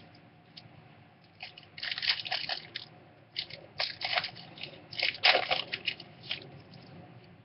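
Foil wrapper of a trading-card pack crinkling in bursts as it is torn open and pulled off the cards, loudest about five seconds in.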